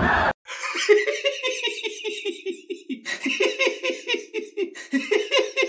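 A burst of crowd shouting cuts off abruptly, then a person laughs in a long, steady run of quick 'ha-ha' pulses, about five a second, with a couple of short breaths in between.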